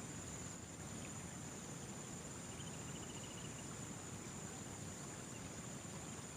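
Steady high-pitched drone of insects over a low rumbling background, with a short rapid trill about two and a half seconds in.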